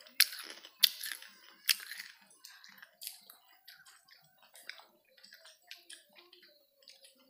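A person chewing buras rice cake eaten by hand: wet mouth smacks and clicks, with three loud ones in the first two seconds and softer ones after.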